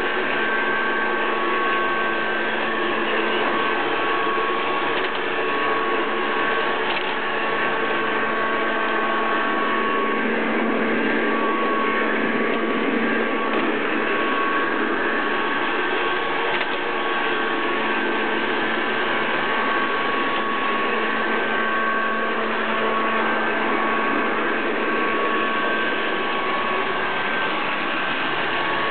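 Robot vacuum cleaner running steadily, its motors giving a constant whirring with a couple of thin, steady high tones on top.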